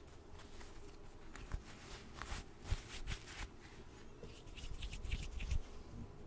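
Faint, scattered soft rustles and light ticks of hands and fingers moving close to a microphone, a few sharper clicks among them.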